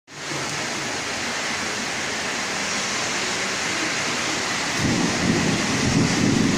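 Heavy rainstorm with strong wind: a steady loud rush of rain. A deeper low rumble swells in about five seconds in.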